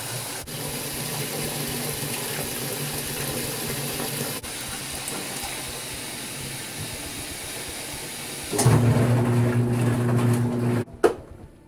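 Top-loading washing machine filling with water, a steady rush. About two-thirds of the way through, a louder, steady low motor hum starts as the machine runs with its lid closed. It cuts off suddenly near the end, followed by a sharp click.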